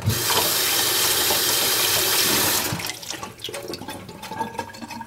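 Kitchen faucet running into a stainless-steel sink. It comes on abruptly at full flow and runs steadily for about two and a half seconds, then gives way to irregular splashing and dripping.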